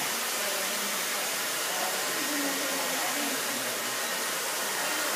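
Handheld hair dryer with a diffuser attachment, running steadily.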